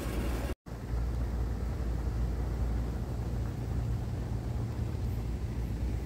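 Steady low hum and rumble of HVAC equipment and ductwork in the ceiling space. The sound cuts out completely for an instant about half a second in.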